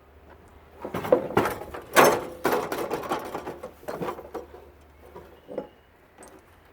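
Knocking and rattling of the water heater's metal parts being handled. A burst of clatter starts about a second in and is loudest around two seconds in, with a few lighter knocks near the end.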